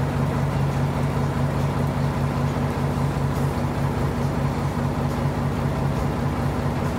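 Engine of an Iseki 8020 tractor-based farm vehicle idling steadily, an even low drone that holds the same pitch throughout.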